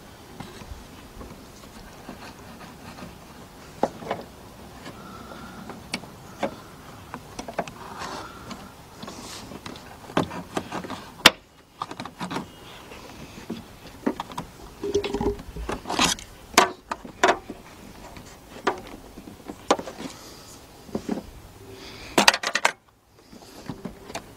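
Irregular clicks, taps and scraping of metal parts being handled as the convertible top's hydraulic cylinder is worked back and forth against its mount, trying to line it up with the pin hole. The handling noise breaks off for a moment twice.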